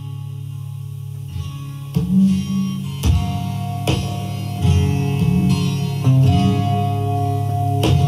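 Recorded music played through a Frazier Super Texan horn loudspeaker, whose original alnico drivers are an Atlas compression driver on a horn plus woofers, heard through a camera's built-in microphone. It is a guitar-led instrumental passage, plucked notes over steady low bass notes, and it grows louder about two seconds in, with accents about once a second.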